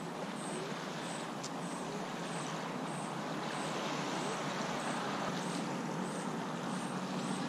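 Steady outdoor ambient noise, a continuous even rush, with a faint high chirp repeating about every two-thirds of a second.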